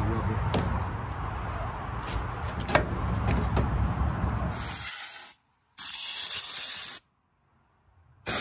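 Steady outdoor rumble with a few light knocks while the old sliding window is lifted out of the frame, then two short hisses of an aerosol spray can, about five and six seconds in, the second a little over a second long: rust reformer sprayed onto the window channel.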